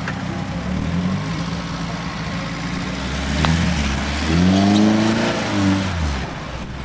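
Off-road vehicle's engine running, revved up about four and a half seconds in and dropping back near six seconds.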